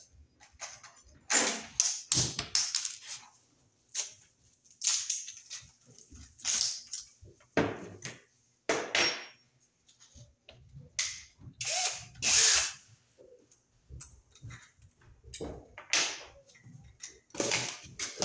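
Scattered, irregular clatters and rustles of tools being handled as a cordless drill is fetched and fitted with a bit; the drill does not run steadily.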